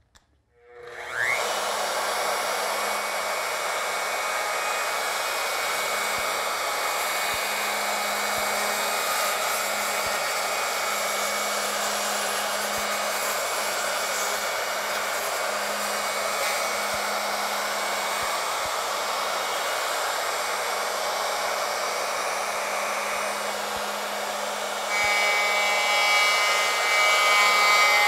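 Loud handheld electric router starting up about a second in with a brief rising whine, then running steadily at speed as its bit trims the tongue along the end of a tabletop. Near the end it gets louder, with a sharper, more pitched tone.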